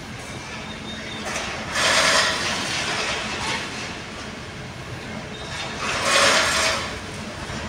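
Roadside traffic noise, with two vehicles passing close by: each passes as a brief swell of rushing noise, about two seconds in and again about six seconds in.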